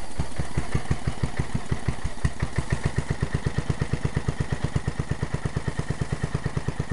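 The small single-cylinder engine of a riding lawn mower idling low and steady in a quick, even chug of about ten firing pulses a second. It is still cold after a cold start in about −10 degrees, which is why it is idling so low.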